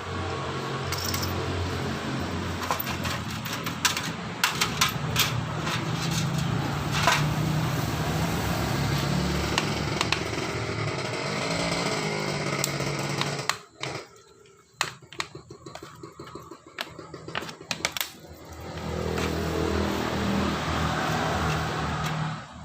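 Small 7-horsepower boat engine running on a test after its water-flooded insides were cleaned out. It cuts out about two-thirds of the way through, a few clicks and knocks follow, and then it runs again near the end.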